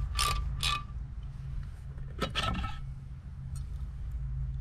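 A ratcheting socket driver clicking twice, about half a second apart, as it turns the screws on a pool pump motor's back cap, then a short light metallic clatter about two seconds in. A low steady hum runs underneath.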